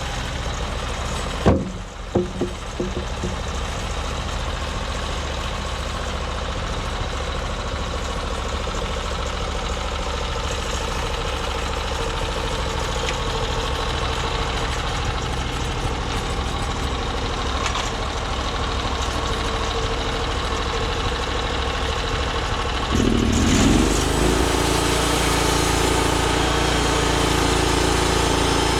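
Norwood MX34 bandsaw mill's small gas engine running steadily. A sharp knock followed by a few lighter clicks comes about a second and a half in. About 23 seconds in, the engine note glides and settles into a louder, different steady pitch.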